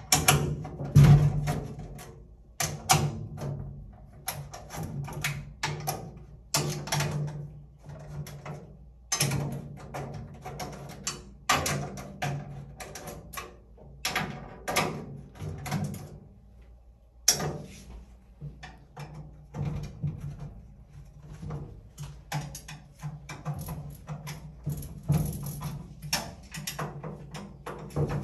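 Irregular clicks and metallic taps of a screwdriver turning and seating screws in the steel mounting bracket and rails of a bill-changer cabinet, over a background music bed.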